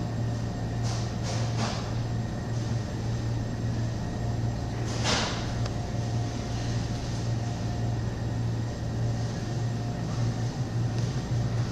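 A steady low hum from a running machine, with a few faint knocks and one louder brief rustle about five seconds in.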